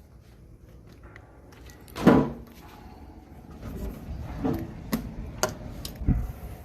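A tall window being unlatched and swung open onto a balcony: one loud clunk about two seconds in, then a few sharp clicks and knocks of the latch and frame.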